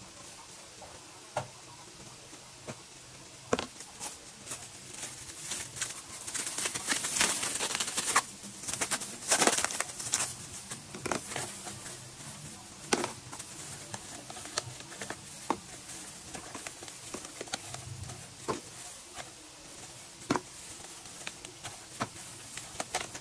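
Plastic zip-top freezer bag crinkling and rustling as it is opened and handled with a plastic-gloved hand, loudest about six to ten seconds in. Scattered sharp clicks and taps as frozen paste cubes are broken apart and dropped into a clear plastic tub.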